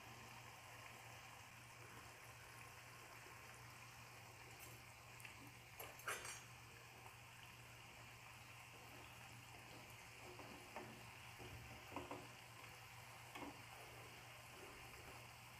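Faint, steady sizzle of jalebi frying in hot oil in a pan. There are a few short scrapes and knocks of a steel slotted spoon against the pan, the loudest about six seconds in and more near the end.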